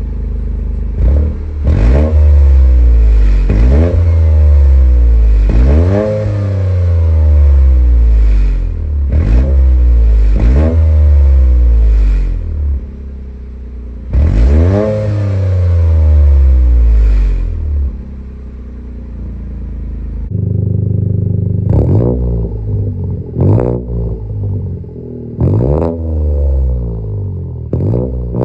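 Toyota GR Corolla's turbocharged 1.6-litre three-cylinder engine revved repeatedly at a standstill through its exhaust. Each rev climbs quickly and falls back slowly. About twenty seconds in the sound changes to quieter, shorter, sharper throttle blips, as the comparison moves between the stock exhaust and the AWE Track exhaust.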